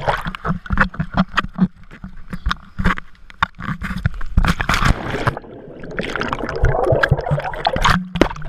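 Water splashing and sloshing, with many sharp, irregular splashes over a rushing wash.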